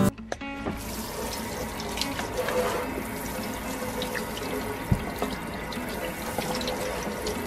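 Kitchen tap running into a stainless steel sink, the stream splashing over a squash as hands rub it clean, with small splashes and clicks. A single soft thump about five seconds in.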